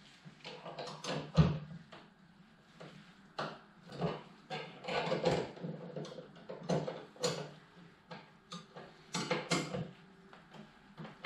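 Spanner and steel pannier-frame fittings clinking and knocking at irregular intervals as a bracket is bolted onto a motorcycle's pannier rack, with a faint steady low hum underneath.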